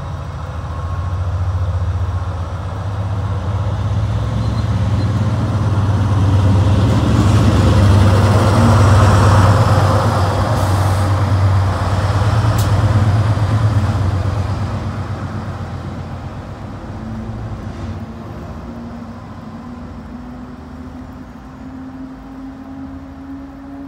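Class 70 diesel-electric locomotive's GE PowerHaul V16 engine running as it approaches, passes close by and draws away. The deep engine drone grows loudest about nine seconds in, with a sharp click about twelve seconds in, then fades, its note rising over the last few seconds.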